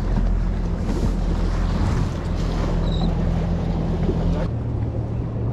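Boat's 250 hp outboard motor running under way, with wind buffeting the microphone and water rushing past the hull. About four and a half seconds in, the engine note changes and the rush of wind and water drops, as if the boat is throttled back.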